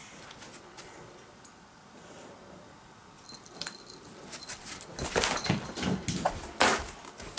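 A cat toying with a live mouse on the floor: scattered light taps and scuffles, and a faint thin high squeak just after three seconds in. In the second half come louder knocks, rustles and clatter as the chase moves off and the handheld camera is carried after it.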